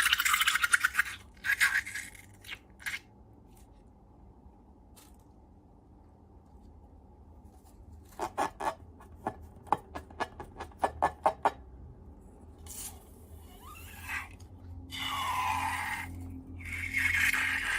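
Slime being scraped, with a run of sharp, quick clicking pops in the middle and scraping again near the end.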